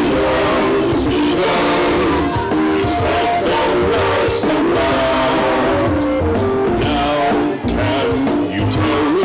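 Upbeat backing-track music for a children's song, with a steady beat and voices singing along.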